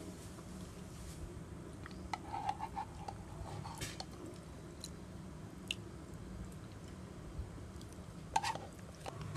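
A person eating close to the microphone: soft chewing with scattered small clicks and knocks, over a low steady hum.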